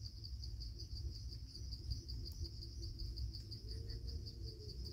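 Insects trilling steadily: a high-pitched chirr pulsing quickly and evenly, over a low rumble.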